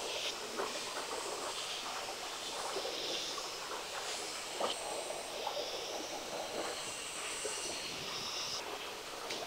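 A shallow forest stream running steadily, with faint high-pitched calls above it and a few soft clicks from hand work on a green stick with string.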